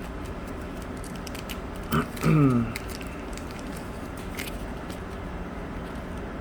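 Faint clicks and rustles of trading cards being handled over steady background noise. About two seconds in there is a sharp click, then a brief low vocal sound that falls in pitch.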